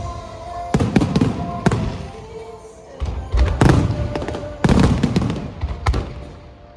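Aerial fireworks shells bursting overhead in quick clusters of sharp bangs, each followed by a low rumble, with music playing steadily underneath.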